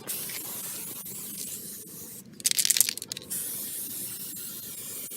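Aerosol tyre-shine spray hissing onto a tyre, with a louder, rougher burst of spraying about two and a half seconds in.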